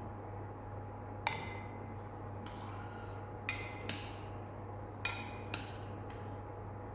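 Glassware clinking: about six light, irregular clinks against a glass, each with a short ring, over a steady low hum.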